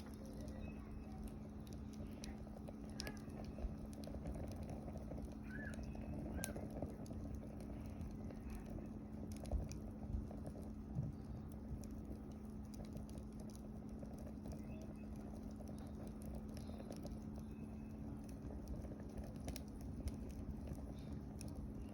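Wood fire crackling, with scattered sharp pops over a soft steady rustle of burning; a few louder pops come about halfway through. A faint steady hum runs underneath.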